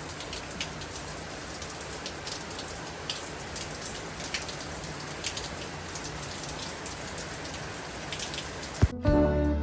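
Steady rain with scattered sharp drop ticks. Near the end the rain cuts off abruptly and guitar music begins.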